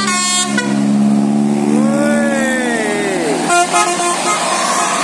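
A bus's telolet basuri multi-tone musical horn playing: a quick run of notes at the start, then a held chord under a siren-like tone that rises and falls, then more short horn notes near the end.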